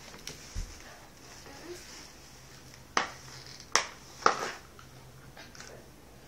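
A few short, sharp taps and knocks, three louder ones in quick succession midway, as a crawling baby handles a plastic toy package on a hardwood floor.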